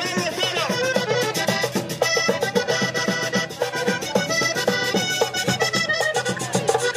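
Accordion-led Panamanian típico music with a quick, steady percussion beat.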